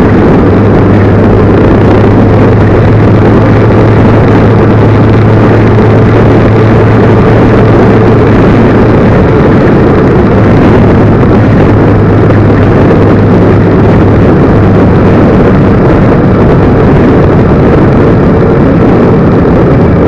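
A vehicle engine running at a steady speed, very loud, with a steady low hum over a dense rushing noise.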